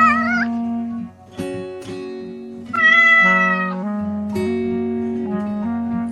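Plucked-string background music, over which a cat meows twice: a wavering meow that fades out just after the start, and a longer, louder meow about three seconds in.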